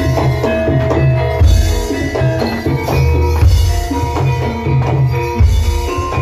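Kuda kepang dance music: drums beating a steady rhythm under ringing pitched tones like gamelan metallophones.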